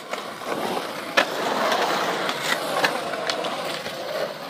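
Skateboard wheels rolling over a concrete bowl: a steady rolling rumble that swells about half a second in, with several sharp clacks from the board, the loudest a little over a second in.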